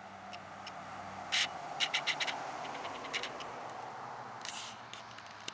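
Handling noise from the recording camera: scattered sharp clicks and scratches, a cluster of them about two seconds in, over a steady low background.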